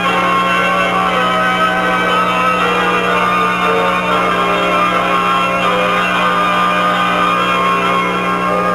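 Background music of held, slowly changing notes over a steady low hum.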